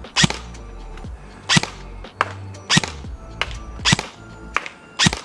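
Evolution Airsoft Reaper XS EMR PDW (ETS II) electric airsoft gun firing single shots on semi-auto with an E100 spring. Five sharp shots come about a second and a bit apart.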